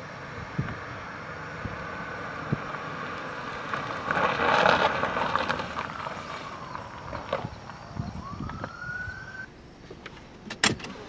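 A siren wails in the distance, its pitch sliding slowly down and then back up, over the low running noise of a Honda Civic pulling off the road onto grass and gravel. There is a louder rush of noise about four seconds in, and a few sharp knocks near the end.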